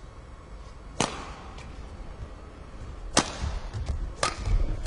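Badminton rackets striking a shuttlecock in a rally: three sharp cracks, about a second in, past three seconds and a second later, over a low arena murmur.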